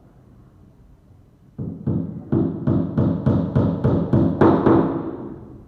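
Background music: a run of deep, ringing drum hits, about four a second, starting about a second and a half in and fading away near the end.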